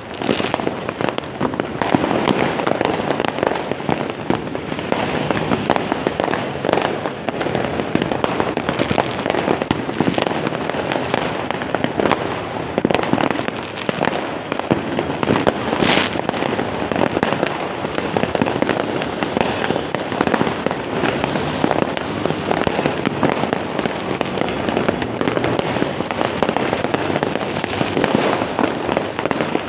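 New Year's fireworks going off in a dense, continuous barrage of bangs and crackles, many at once with no pause.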